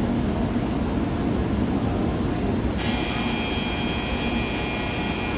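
Shinkansen bullet train approaching the platform: a steady rushing noise, with a high hiss joining suddenly about halfway through.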